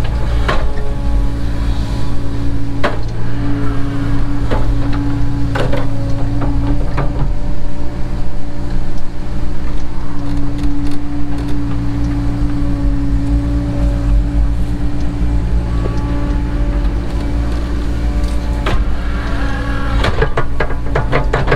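Cat 307 excavator's diesel engine running under load, with a steady hydraulic whine over its low drone. A few sharp clanks from the bucket and linkage, and a quick run of them near the end.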